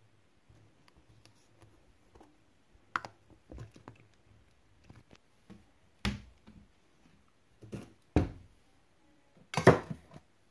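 Kitchen handling noises: a wooden cupboard door is opened with a knock, and a stainless steel canister is grabbed and moved on the shelf. Scattered light clicks run throughout, with a few sharp knocks and the loudest clatter near the end.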